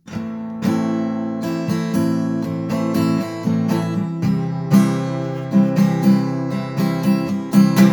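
Acoustic guitar in drop tuning, strummed chords (an instrumental intro with no singing), with a steady strumming rhythm and accented strokes throughout.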